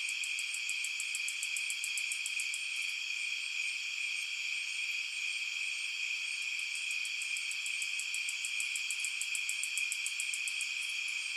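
Summer night insect chorus: a steady, many-voiced high chirring at several pitches, with a faster, higher pulsed trill of about seven beats a second that comes in twice, for the first few seconds and again from about the middle to near the end.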